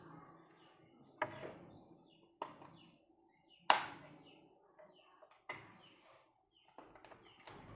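Hard parts being handled and set down: five sharp knocks and clicks spaced about a second or more apart, each ringing briefly, with faint high chirps in between.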